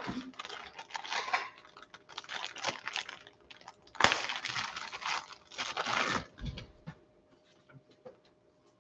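Packaging being crinkled and torn by hand in irregular noisy bursts, strongest in two stretches in the first six seconds, then dying away.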